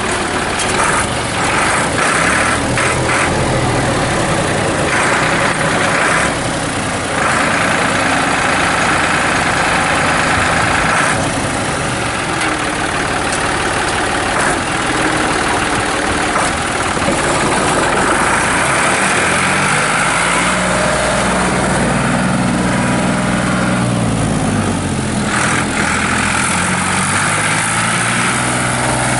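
New Holland 3430 tractor's three-cylinder diesel engine running steadily, its pitch rising and falling with engine speed in the second half.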